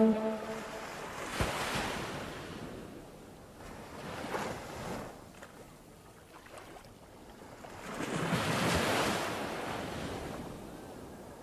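Water washing in the shallows, coming in three surges that rise and fall every few seconds, the loudest near the end.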